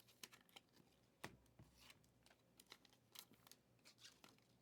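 Faint, scattered clicks and rustles of trading cards being handled and sorted, the sharpest click about a second in.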